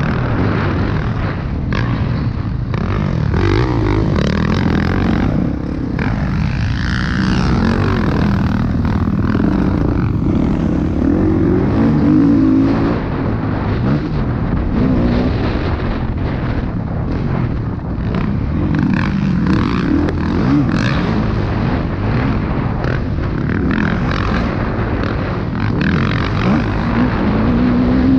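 Motocross bike engine at race pace, heard from the bike itself, revving hard and dropping back again and again, its pitch climbing and falling with each throttle change.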